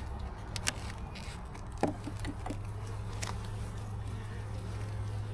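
Honeybees humming steadily around an open hive, with a few sharp clicks from the hive frames being handled.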